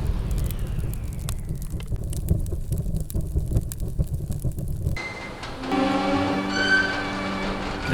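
Fireworks crackling over a low rumble, with scattered sharp pops, cutting off suddenly about five seconds in. A soft instrumental song intro follows.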